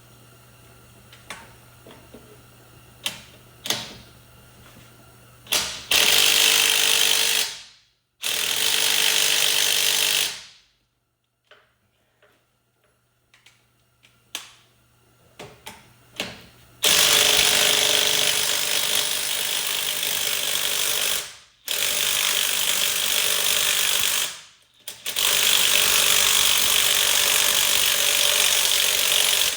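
Impact wrench with a 1 1/8-inch socket hammering on a truck's wheel lug nuts in five long bursts, after a few clicks of the socket being set on. The nuts are stubborn to break loose.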